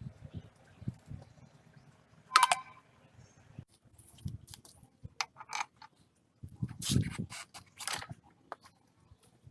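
Metal hand tools and parts clinking and scraping: one sharp ringing metallic strike about two and a half seconds in, then scattered clicks and scrapes.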